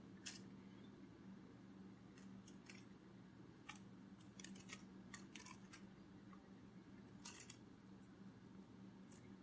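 Faint, crisp clicks and ticks come irregularly, singly or in quick clusters of three or four, over a steady low hum.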